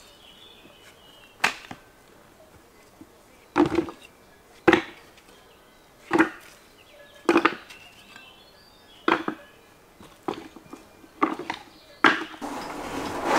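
Stones knocking as they are picked up and tossed into a plastic bucket: a series of sharp, separate clacks, about one every second. Near the end a rougher, continuous rattle sets in.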